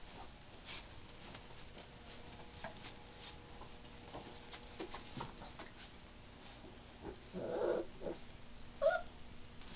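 Five-week-old puppies at play: scattered light scuffles and taps of paws on a blanket, a short puppy vocalization about three-quarters of the way through, and a brief high yip near the end.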